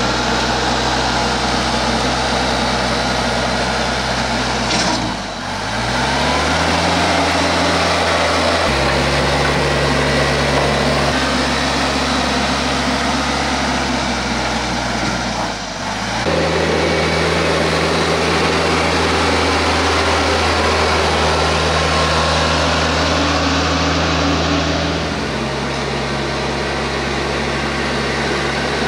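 TYM T474 compact tractor's diesel engine running steadily while it pulls a land plane over bare dirt. The engine note dips briefly and recovers twice, about five and sixteen seconds in.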